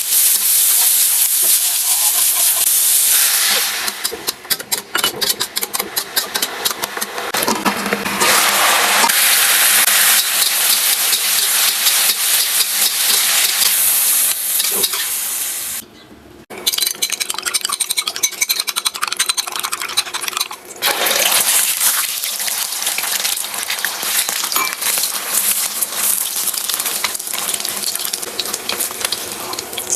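Food sizzling as vegetables are stir-fried in a hot pan, with stirring and the clink of a utensil against the pan. The sizzle drops away for a moment about halfway through, then carries on.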